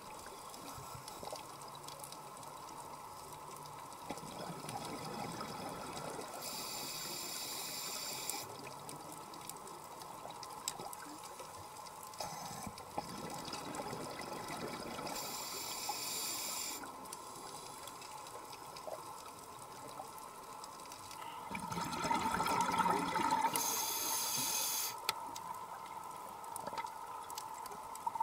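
Scuba diver breathing through a regulator, heard underwater: a steady watery hiss broken about every eight seconds by a hissing breath and bubble rush. The loudest breath comes about three-quarters of the way through.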